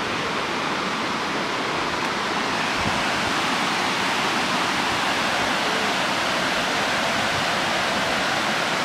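Water pouring over a river weir: a steady rushing that neither rises nor falls.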